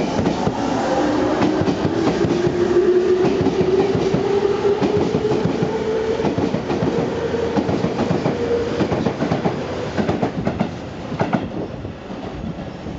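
Tobu 20050 series electric commuter train accelerating away from a station: a whine from its traction motors rises steadily in pitch for several seconds over the clacking of its wheels on rail joints. The sound fades near the end as the last car passes.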